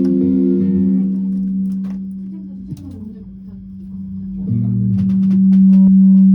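Guitar playing: held notes ring and fade away, then a loud, steady low note starts about four and a half seconds in.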